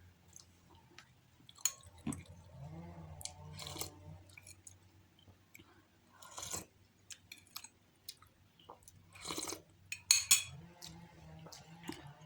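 Close-up mouth sounds of a person eating a bowl of curry instant noodles and bakso aci: soft chewing with short slurps and clicks at irregular intervals. The loudest is a cluster about ten seconds in.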